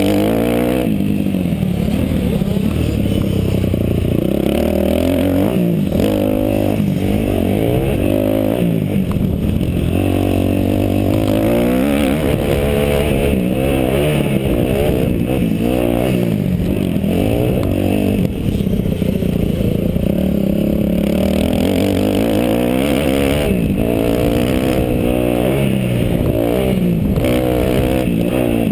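Kawasaki KX250F four-stroke single-cylinder motocross engine, heard from on the bike, revving up and falling back over and over as it is ridden hard on a dirt track.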